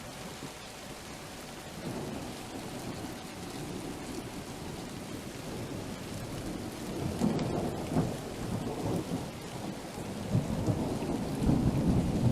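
Steady rain during a thunderstorm, with rolling thunder that builds about halfway through and grows louder again near the end.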